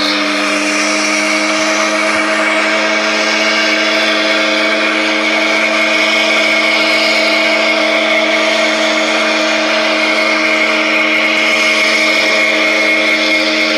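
A ship's whistle sounding one long, loud, continuous blast of about fourteen seconds. It holds a steady pitch made of several tones over a strong hiss, and cuts off abruptly.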